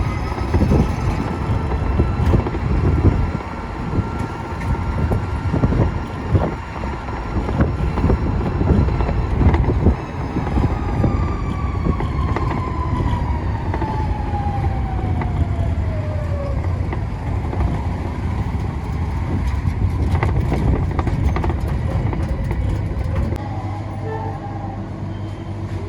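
Street traffic: vehicle engines running with knocks and rattles. About ten seconds in, one engine's whine falls steadily in pitch over several seconds as the vehicle slows or passes.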